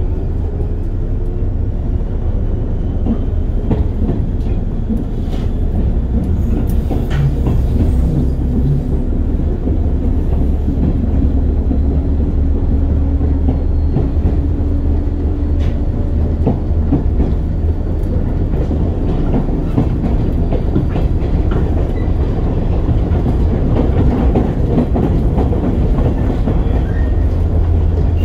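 Running sound inside the motor car of a JR West 103 series electric train: a steady, loud rumble of wheels on rail with irregular clicks of rail joints. Over it, a motor whine rises in pitch over the first few seconds as the train picks up speed after departure.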